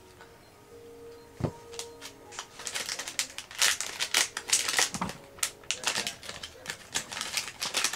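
Crinkly foil and plastic blind-bag packaging being handled and opened, with a single knock about a second and a half in, then dense, rapid crackling and crinkling from about two and a half seconds on.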